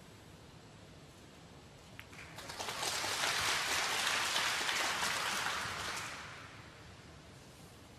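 Arena audience applauding for about four seconds, swelling up quickly and dying away, after a single sharp click.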